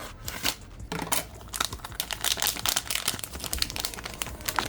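Plastic packaging crinkling, with a rapid run of small clicks and crackles as it is handled.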